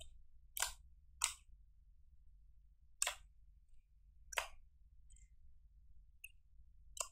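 Clear glitter slime mixed with crushed makeup being pressed and kneaded by hand, giving sharp wet pops and clicks: five distinct ones, irregularly spaced, with a couple of fainter ticks between them.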